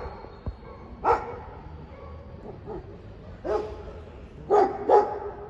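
A pack of stray dogs barking in scattered single barks, with two barks close together near the end.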